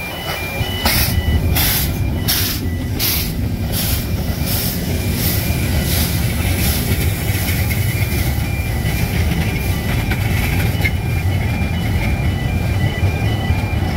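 Narrow-gauge steam locomotive and its coaches passing close by. A run of sharp exhaust beats comes about every two-thirds of a second and fades after about seven seconds, over a steady low rumble of wheels on the rails.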